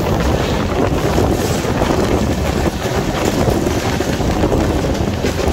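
Loud, steady wind rush on a microphone held out of a moving passenger train, with the train's low running rumble beneath it.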